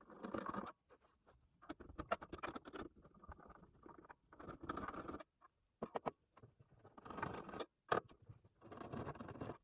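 Screwdriver backing screws out of the plastic case of a Panasonic RX-5030L boombox: about six short spells of scraping and clicking, with a few sharp clicks, separated by brief pauses.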